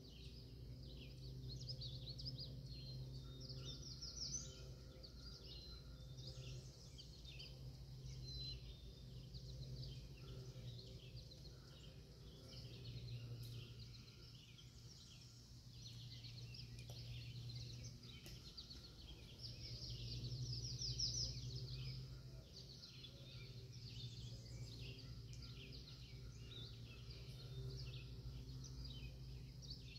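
Songbirds chirping and trilling continuously in a chorus, with a faint steady low hum underneath.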